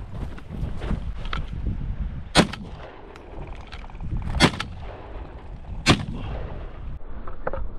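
Three shotgun shots, about two seconds and then a second and a half apart.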